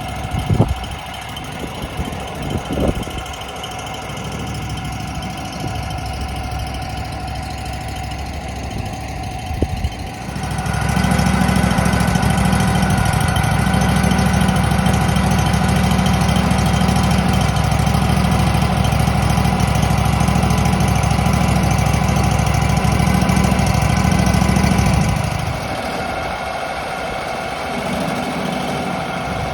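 Wood-Mizer LT28 portable sawmill's engine running steadily, with a few sharp knocks in the first ten seconds. About ten seconds in it becomes much louder and heavier for about fifteen seconds, then drops back to its earlier level.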